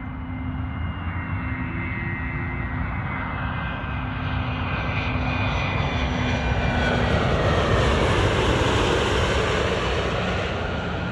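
Twin-engine business jet on landing approach passing low overhead: turbofan whine with several high tones sliding slowly down in pitch over a steady engine roar, which builds to its loudest about eight seconds in and then eases off.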